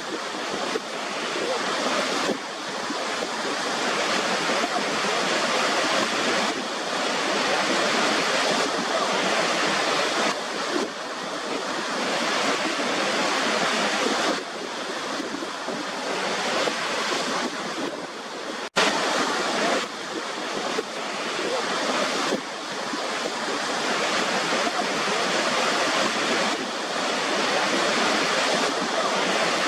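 Waterfall's rushing water: a dense, steady hiss that swells and eases slowly, broken once by a split-second drop-out about two-thirds of the way through.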